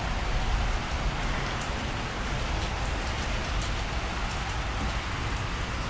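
Steady rain from a rainstorm: an even hiss with a few faint sharp drip ticks.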